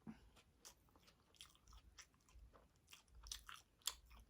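Someone chewing food close to the microphone: faint, irregular mouth clicks and smacks, a couple of louder ones near the end.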